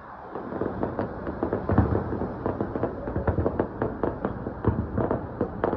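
Aerial fireworks going off in a rapid, dense run of bangs and crackles, which grows louder about half a second in.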